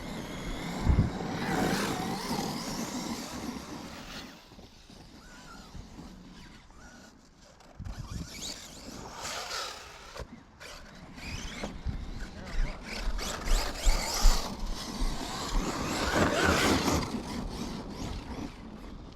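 Electric RC cars driving on loose dirt and sand: motor whine rising and falling in three spells of hard driving, with tyres scrabbling on the ground, and a quieter stretch in between. A thump comes about a second in and another about eight seconds in.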